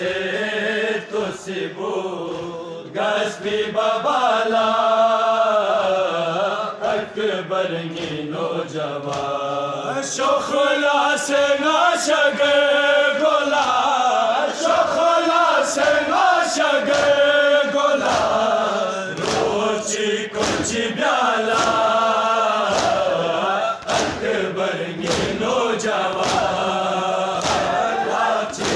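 A group of men chanting a Balti noha (Muharram lament), led by a reciter at a microphone. From about ten seconds in, a regular beat of hands slapping chests (matam) keeps time with the chant.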